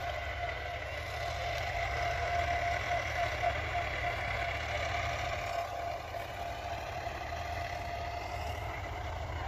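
A steady motor drone with a constant pitch, over a low rumble of wind on the microphone.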